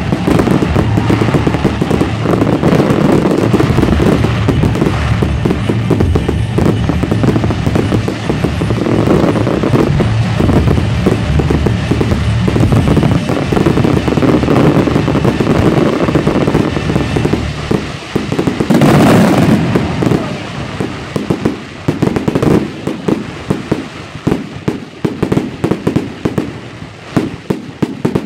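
Aerial fireworks display: a dense, continuous barrage of bursts and crackling, with one loud burst about two-thirds through. After that, the shots thin out into separate pops and crackles.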